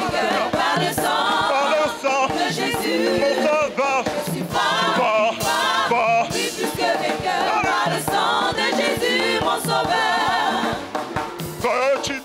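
Choir singing an upbeat French gospel hymn over band accompaniment with a steady beat.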